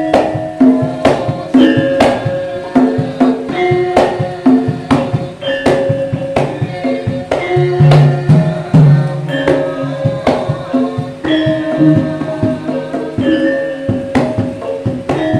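Javanese gamelan ensemble playing: bronze metallophones and gong-chimes struck in an interlocking pattern of ringing pitched notes, with kendhang hand-drum strokes.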